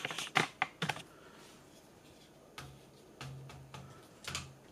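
Quick clicks and light knocks of a carbon fibre tube being handled and slid through plastic 3D-printed joiners and bushings, a cluster of them in the first second and a few softer ones later, with a faint low hum in the middle.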